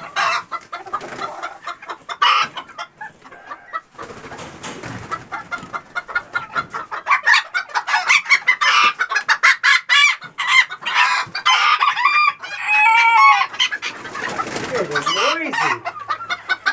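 Chickens clucking and squawking as they are caught off the roost and handled, including a young rooster. Rustling and clattering run throughout, and the calls grow louder and more frequent from about halfway through.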